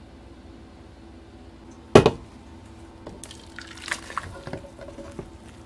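A single sharp knock about two seconds in, then soft splashing and small clinks as komatsuna soup is poured into a wooden soup bowl.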